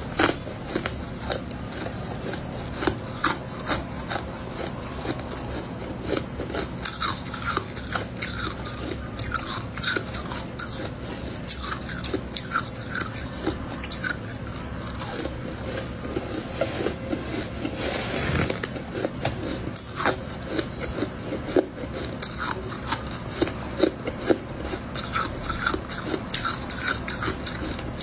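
Close-miked biting and chewing of powdery freezer frost: soft crackly crunches repeating throughout, with one longer, louder crunch about 18 seconds in.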